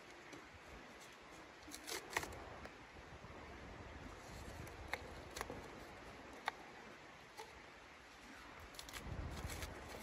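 Cardboard being torn and handled by hand for kindling: a few short, sharp rips and crackles amid quiet rustling, busier near the end.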